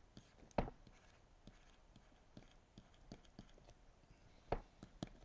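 Faint taps and ticks of a pen stylus on a tablet as figures are handwritten. There is a sharper click about half a second in and two more near the end.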